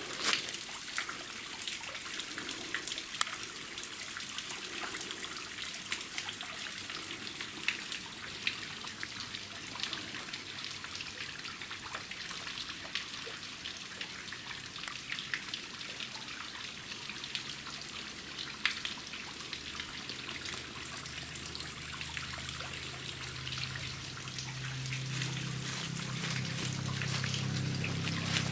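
Water trickling and splashing at a waterfall: a steady rushing hiss dotted with many small drips and splashes, with a low rumble building in over the last several seconds.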